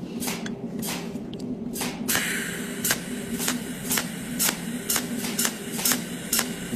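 TIG welding arc on a square-tube corner joint, pulsing in short crackling spurts about twice a second over a steady electrical hum.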